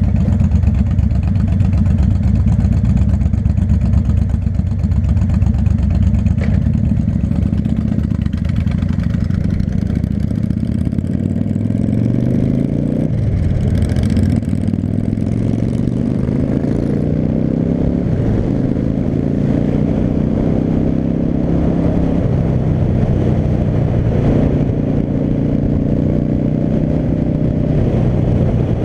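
V-twin cruiser motorcycle engine idling, then pulling away about eight seconds in and accelerating up through the gears, its pitch rising and dropping back at each of several shifts.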